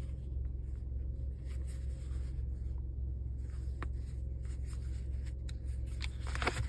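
Light rubbing, scraping and soft clicks of fingers handling and opening a stiff new leather bifold wallet, with a denser rustle near the end. A steady low hum runs underneath.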